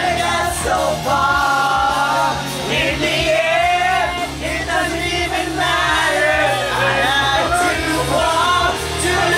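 A song with singing and a steady bass line playing loudly, with people shouting and whooping over it.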